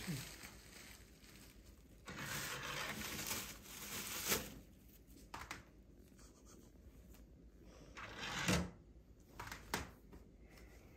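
Rustling of trash being dropped into a Xiaomi automatic sensor trash can, then a few sharp clicks.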